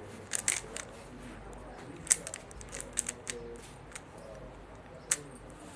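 A plastic 3x3 Rubik's cube being turned quickly by hand: irregular sharp clicks and clacks as its layers are twisted, the loudest about two seconds in.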